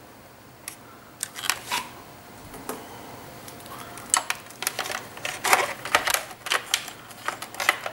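Irregular light clicks and taps of hard plastic as an action figure is fitted into the cabin of a Hasbro G.I. Joe Night Attack Chopper toy helicopter. The clicks are sparse at first and come more often in the second half.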